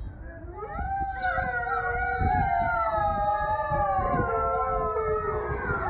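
Several canids howling together in a pack chorus, starting about half a second in: overlapping voices at different pitches, each long howl sliding slowly downward.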